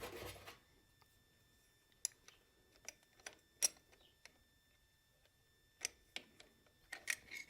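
A few faint, sharp metallic clicks and taps at irregular intervals as a hand tool tightens the oil fill plug on an electric jackhammer.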